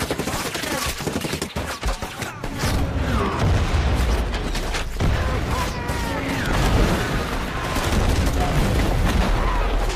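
Movie battle sound: dense, rapid rifle and machine-gun fire, with heavy explosion booms rumbling from about two and a half seconds in.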